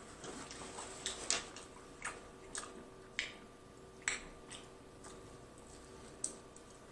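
Close-miked mouth sounds of a person eating supreme pizza: chewing with wet lip smacks and sharp clicks about every half second to second, and a bite into a slice near the end.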